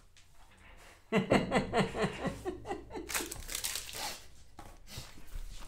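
A voice chuckling from about a second in, then crinkling and tearing of a trading-card box's plastic wrap as it is handled and opened.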